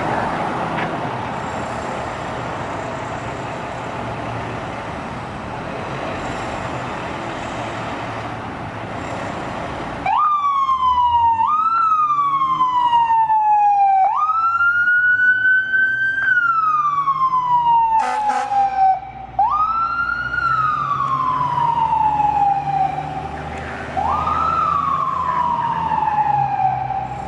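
2005 Seagrave Marauder II fire engine's diesel running steadily for about ten seconds. Then its mechanical siren starts: it winds up quickly and coasts down slowly, five times over, as the engine responds. A short horn blast comes between the third and fourth wails.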